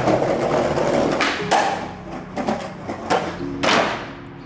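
Skateboard wheels rolling on concrete, followed by several sharp clacks of the board hitting the ground, about four over the next few seconds.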